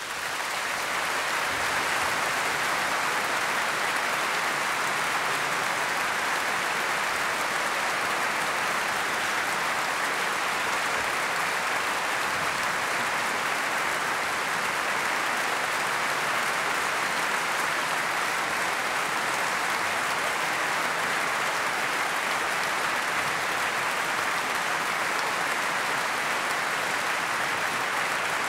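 Concert audience applauding: dense, steady clapping that swells up out of silence in the first second and then holds even.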